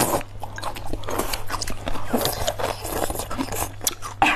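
Close-up eating sounds: chewing and biting with irregular clicks and scrapes of chopsticks on bowls, over a steady low hum.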